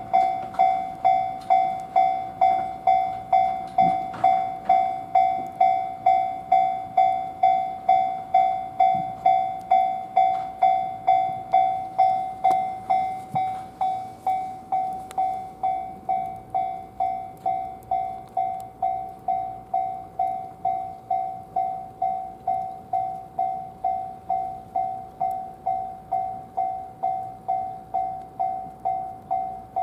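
Japanese level-crossing warning bell ringing without pause, about two strikes a second, each a ringing tone that fades before the next. It goes on sounding while no trains run, which the uploader suspects is a crossing fault.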